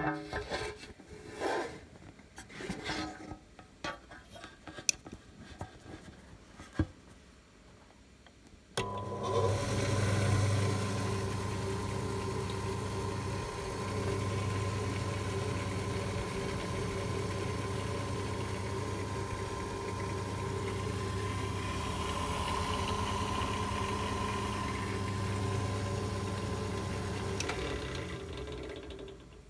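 Old Clarke drill press's electric motor and belt-and-pulley drive switched on about a third of the way in, running with a steady hum, then switched off near the end and fading as it winds down. Before it starts, a few clicks and knocks from handling the open belt housing.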